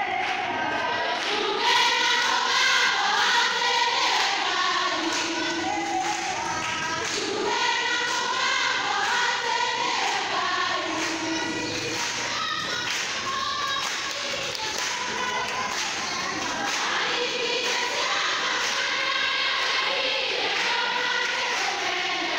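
A large group of people singing together like a choir, a hymn-like worship song sung by the gathered crowd.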